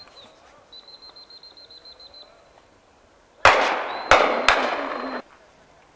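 Shotgun shots: a sudden loud bang about three and a half seconds in, then two more in quick succession, ringing out and dying away. Before them, a high warbling whistle sounds briefly.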